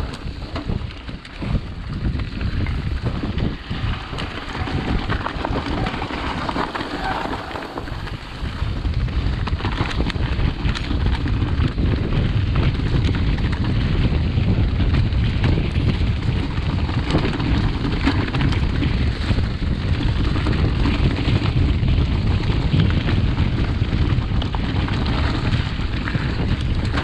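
Wind rushing over an action camera's microphone and mountain-bike tyres rolling over a rough dirt trail, with many small rattles and knocks from the bike. It gets louder about eight seconds in.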